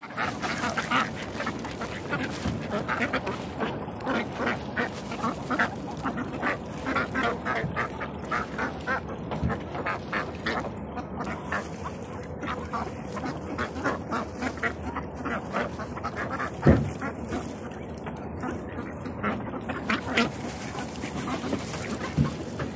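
A flock of domestic ducks quacking over and over as they are fed grain, with one sharp loud knock about three-quarters of the way through.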